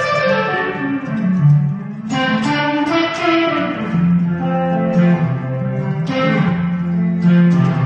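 Electric guitar played alone, picking a slow melodic line of single notes and chords, several notes held and left ringing.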